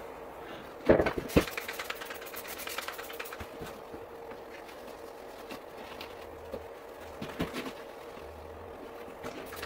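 A cloth rag rubbing over the truck's painted cab roof, wiping it down with rubbing alcohol to clear off old glue residue. Two sharp knocks come about a second in, then a quick run of small clicks and rustles, all over a steady faint hum.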